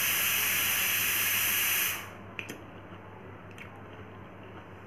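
A loud, steady hiss that cuts off suddenly about two seconds in, followed by two faint clicks about half a second and a second and a half later.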